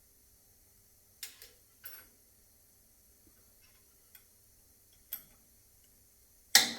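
A few scattered knocks and taps from wood and tools being handled, with the loudest knock near the end.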